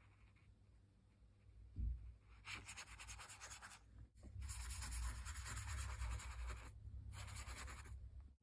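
Wet paintbrush scrubbing across cold-pressed watercolour paper in three spells of quick strokes, blending brush-pen colour into a background wash. A low thump about two seconds in.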